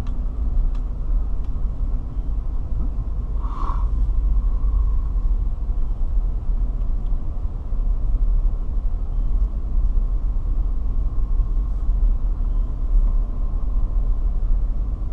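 Steady low rumble of a car driving slowly, heard from inside the cabin, with a brief higher-pitched sound about four seconds in.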